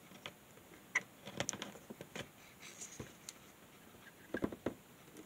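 Light, scattered clicks and taps of small-parts handling as test probes and an LCR meter are picked up and a probe tip is set against a capacitor on a circuit board; the sharpest click comes about a second in and two more cluster near the end.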